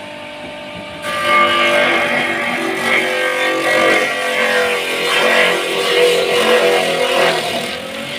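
Homemade feed-chopping machine's motor running as a whole papaya is pressed into its grater, getting louder about a second in as the fruit meets the blade. Guitar background music plays over it.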